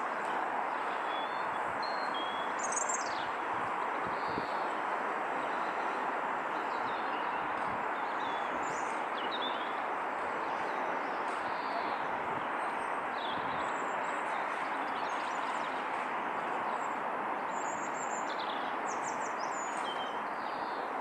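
Small birds chirping now and then, in short scattered calls, over a steady rushing background noise that neither rises nor falls.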